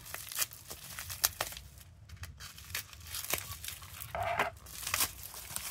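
Plastic mailing packaging crinkling and rustling as it is handled and cut open with small scissors, with scattered sharp clicks. A louder rustle comes about four seconds in.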